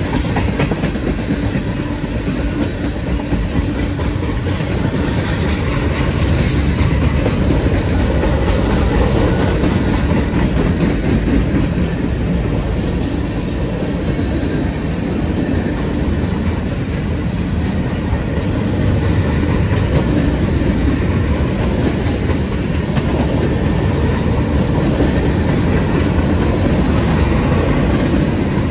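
Freight train of tank cars, covered hoppers and boxcars rolling past close by: a steady, loud rumble of steel wheels on the rails.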